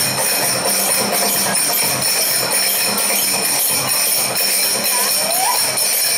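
Metal finger cymbals (zills) ringing in a steady rhythm over dance music with a pulsing low drum beat.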